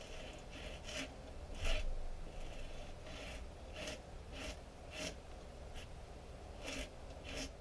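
Short abrasive hand strokes on hardened Bondo body filler, shaping it by sanding or filing: about a dozen rasping strokes roughly half a second to a second apart, with a pause of over a second near the end.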